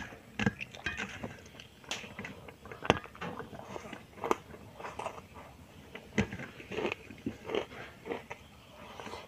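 Close-miked eating: irregular biting and chewing with many sharp, crunchy clicks, from someone eating spicy stingray with krupuk crackers.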